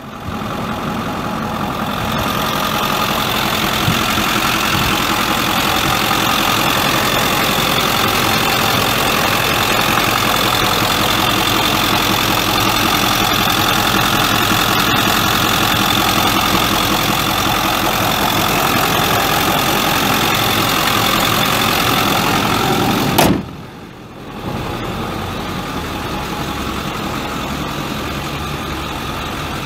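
A 2008 Ford F250's 6.4L V8 turbo diesel idling steadily. About three-quarters of the way through there is a sharp click, and after it the engine sounds quieter.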